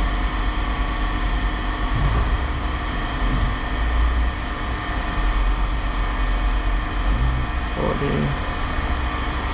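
Steady low drone of running machinery, with faint voices about three-quarters of the way through.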